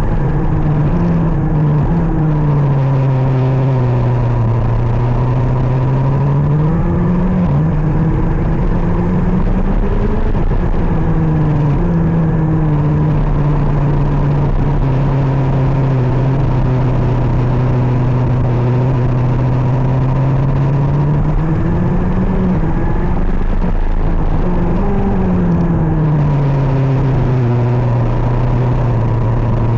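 KZ 125 shifter kart's 125cc two-stroke engine running hard on track, its pitch falling and rising again several times as it comes off and back onto the throttle through corners.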